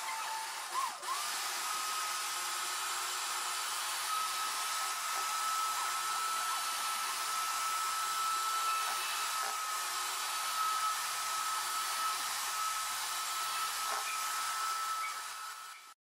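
Mondial electric hand mixer running at top speed, its beaters whipping instant coffee, sugar and hot water into whipped coffee. Its steady whine steps up in pitch about a second in, then holds until the motor sound fades and cuts off near the end.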